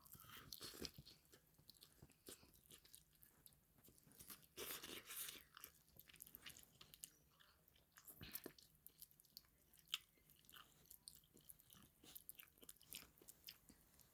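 Faint close-up chewing of noodles and buffalo chicken bites: scattered soft mouth clicks and crunches, with a louder stretch about four to five seconds in.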